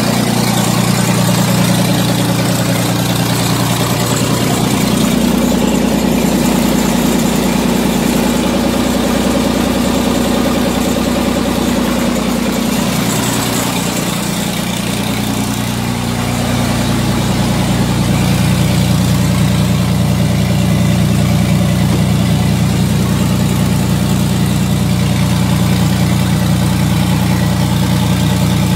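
John Deere 4430's six-cylinder turbo diesel idling, running without its muffler. The engine note shifts a few times in the first half, then holds steady.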